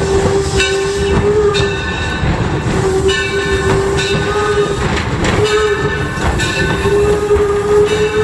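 Steam locomotive whistle blowing a steady single note in the road-crossing pattern: two long blasts, a short one, then a long one. Underneath is the running noise of the moving train, with regular clicks from the wheels.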